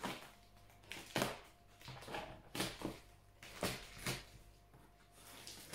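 Scissors cutting and scraping along packing tape on a large cardboard box, heard as a series of short scrapes and rustles, roughly one or two a second.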